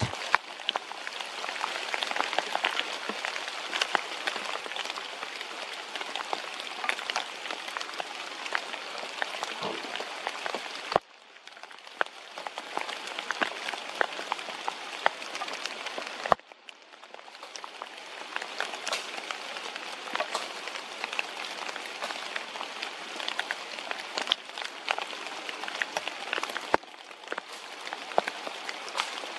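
Steady rain falling, with the patter of many individual drops striking close by. The sound drops away abruptly three times.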